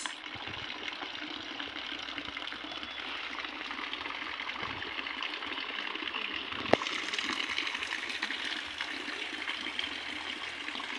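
Steady rain falling on a wooden deck, a plunge pool and tropical foliage, an even hiss throughout, with a single sharp tap about two-thirds of the way through.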